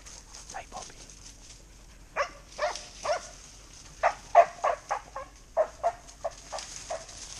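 Dog giving short yips and whimpers, about a dozen in quick irregular succession, the loudest about halfway through.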